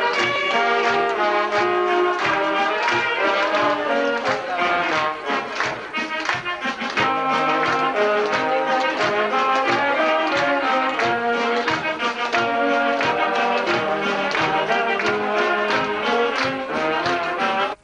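Brass band playing an upbeat tune, trumpets and trombones over a steady drum beat; the music cuts off abruptly near the end.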